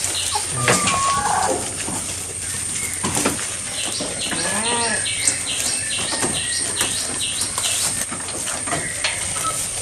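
Goats tearing and chewing freshly cut grass and leaves, a steady run of crisp crunching and rustling. From about four seconds in, a high chirp repeats about twice a second over it.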